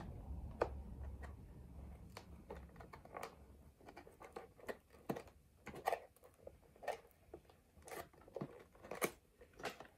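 Quiet, irregular clicks and scratches of a box's packaging being handled and pried open by hand.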